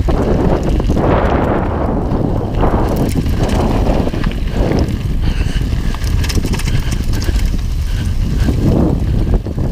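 Mountain bike ridden fast down a gravel trail: wind buffets the helmet-mounted camera's microphone while the tyres crunch over the loose surface, with swells of gravel noise about a second in, around four seconds in and near the end, and light clicks and rattles from the bike over the bumps.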